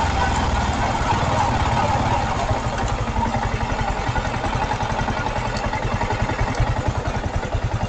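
Motorcycle engine running at low speed and slowing toward idle, its firing pulses becoming more distinct in the second half.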